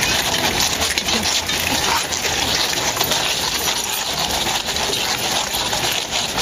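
Steady rushing noise with scattered light clicks and metallic clinks from cavalry horses walking close by, their chain bridles and tack jingling and hooves stepping on the sand.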